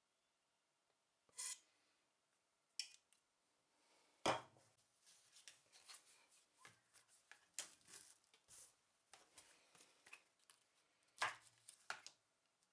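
Light kitchen handling sounds: a few sharp clicks and knocks of utensils being picked up and put down on a wooden worktop, with a dull thud about four seconds in and another knock near the end, and small rustling and scraping sounds in between.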